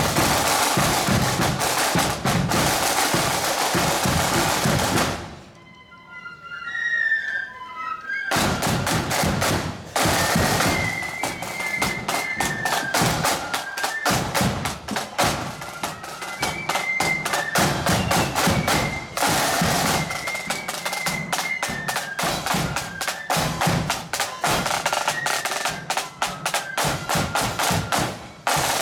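Marching flute band playing: side drums beating rapid rolls and strokes under a high flute melody. The drumming stops about five seconds in and the band starts up again about three seconds later.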